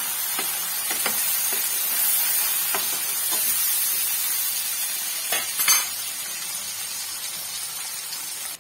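Tomato paste and spice masala sizzling in hot oil in a non-stick frying pan, with a steady hiss, while a spatula stirs it, scraping and tapping against the pan every so often; the loudest strokes come a little over halfway through.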